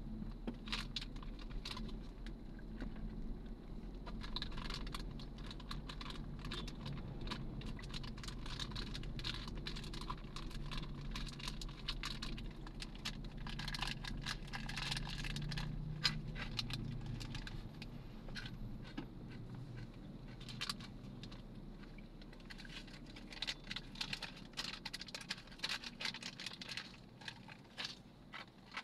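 Steady low rumble of a moving vehicle's cabin under a dense run of light clicks and rattles that never stops.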